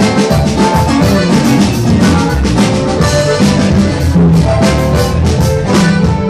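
A live norteño band playing, with bass and drums keeping a steady beat under held melody notes.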